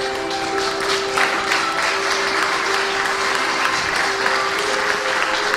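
Audience applauding, building up about a second in, over music with long held notes.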